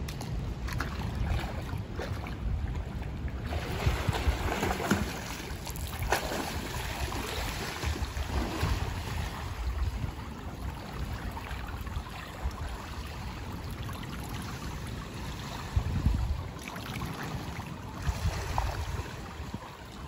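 Swimming-pool water splashing as a man gets into the pool and swims across it, growing louder a few seconds in, with wind rumbling on the microphone.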